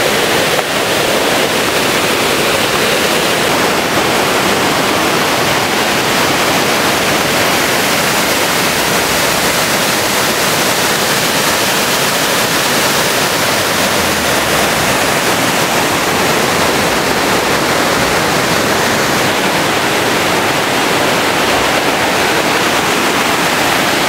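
Waterfall in heavy flow: a loud, steady rush of falling water crashing into its pool.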